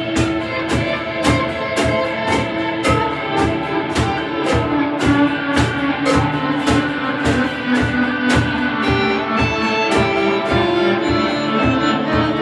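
A band playing an instrumental piece in Middle Eastern/Turkish folk style: two electric guitars over a drum kit keeping a steady, even beat.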